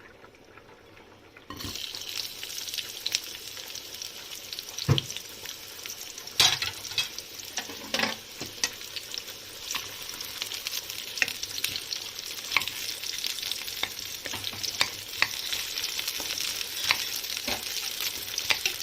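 Sliced onions dropped into hot oil in a kadai: a sizzle starts abruptly about a second and a half in and runs on steadily, with the clicks and scrapes of a spoon stirring against the pan.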